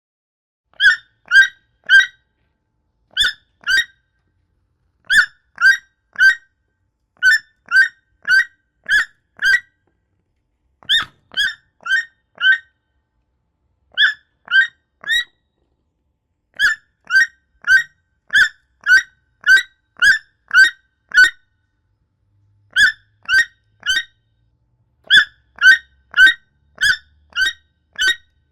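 Toucan calling: short, pitched yelping notes about two a second, in runs of two to nine, with silent pauses between the runs.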